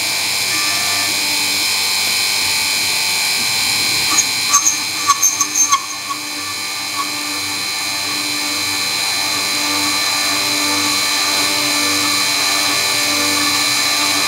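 BF20 CNC milling machine cutting metal with a face-milling cutter: a steady spindle and cutting whine over a hiss of cutting noise, with a few short, sharp squeals of the cutter about four to six seconds in.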